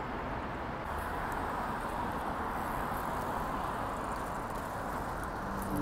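Steady outdoor background noise, an even hum with no distinct events.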